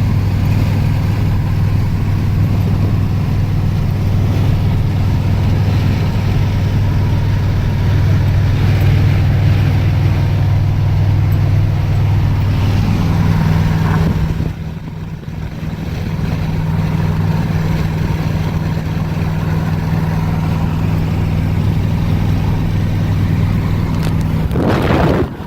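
Modified 2006 Subaru WRX STI's turbocharged flat-four engine droning at a steady cruise, with a brief dip in level about halfway through, after which it settles at a slightly higher pitch. Near the end the revs rise quickly.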